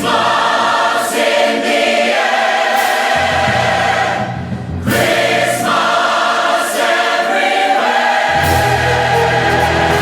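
Large church choir singing sustained chords with orchestral accompaniment, with a short break in the sound about four and a half seconds in.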